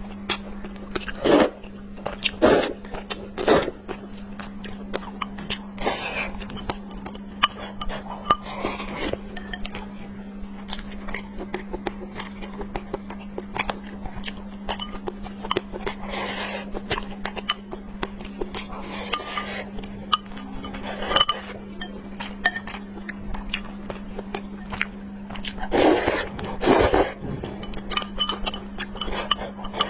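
Close-miked eating sounds: chewing and mouth noises in irregular bursts, with utensils clinking against a bowl. A steady low hum lies underneath.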